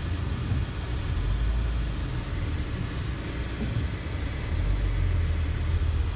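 Low, steady rumble of a car moving slowly over cobblestones, its engine and tyre noise heard from inside the cabin.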